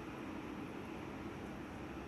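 Steady background hiss with a low hum and no distinct events.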